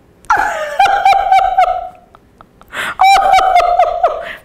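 A woman's high-pitched laughter in two bouts of quick squealing pulses, several a second, with a sharp gasp of breath between them.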